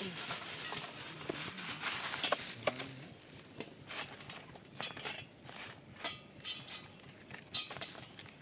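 Green vegetable pods tipped from a plastic bag onto a stainless steel plate and sorted by hand: irregular light clicks and taps of pods and fingers on the metal, with some plastic rustling, busiest in the first few seconds.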